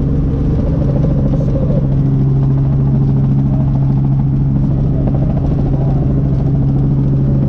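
Cabin noise of a small helicopter in flight: engine and rotors running at a loud, steady drone with a constant low hum.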